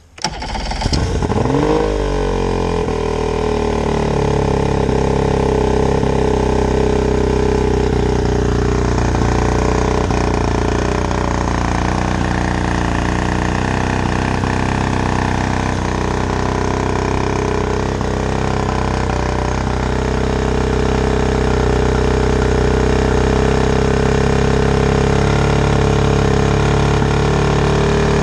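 Two-stroke outboard motor starting: it catches about half a second in and revs up over a second or so, then settles into a steady idle. It is running out of the water on flushing muffs, on a Sea Foam fuel mix to clean its carburetors and injectors.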